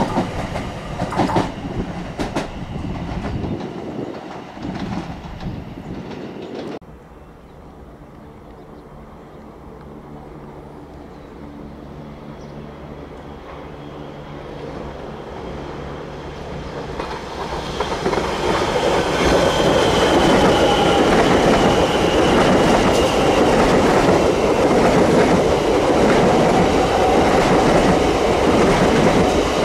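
Trains running past on the line: loud train noise that drops off sharply about seven seconds in, a quieter stretch with a steady low hum, then another train building up and running past loudly from about eighteen seconds, with a high wheel squeal soon after it arrives.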